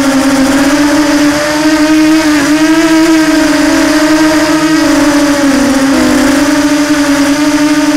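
Electric motor and propeller of a radio-controlled FPV aircraft in flight, a steady whine whose pitch wavers up and down with the throttle, dipping briefly twice.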